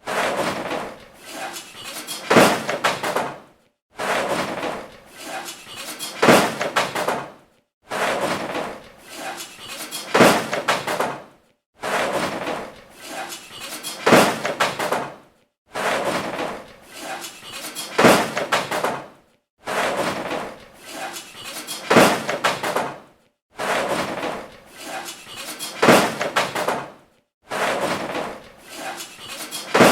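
Garbage and junk crashing and tumbling, a clatter of metal and containers. The same clatter of about four seconds repeats over and over with a brief silence between, each time with its loudest crash a little past halfway.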